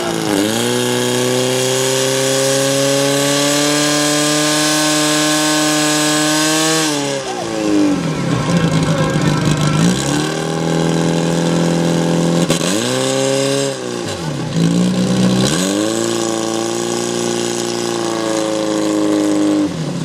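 Portable fire-sport pump engine running hard at high revs. Its pitch holds steady, then drops sharply and climbs back three times: once about seven seconds in, then twice more between about twelve and sixteen seconds. A steady hiss runs with it for the first seven seconds.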